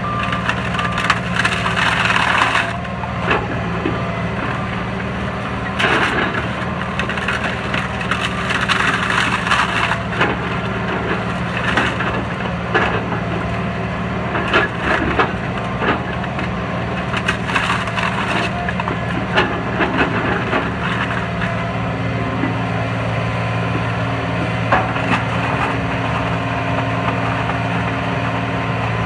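Excavator grapple crushing a pile of wooden pallets: wood cracking and splintering in irregular bursts over the steady run of the machine's diesel engine. The cracking thins out over the last several seconds, leaving mostly the engine running.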